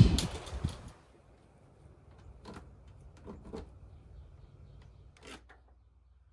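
Light handling sounds of a T-square and marker on a vinyl lattice panel while a cut line is measured and drawn: a low knock dying away in the first second, then a few faint, short scrapes and clicks.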